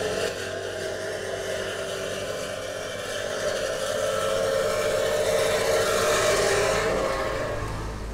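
Tractor engine and its boom-arm flail mower running with a steady hum. It grows louder as the bikes pass close by and fades near the end.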